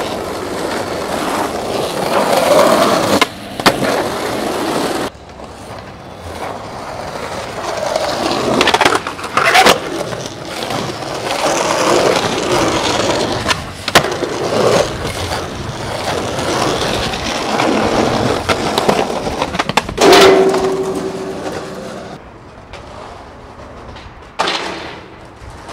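Skateboard wheels rolling over concrete and asphalt, broken by several sharp clacks of the board popping and landing. About twenty seconds in, a steady pitched scrape runs for about two seconds, as of a board or truck grinding along a ledge.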